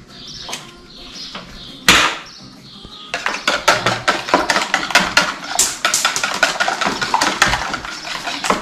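An egg being beaten in a plastic mixing bowl: a single sharp knock near two seconds in, then from about three seconds a fast, irregular clicking and scraping of the utensil against the bowl.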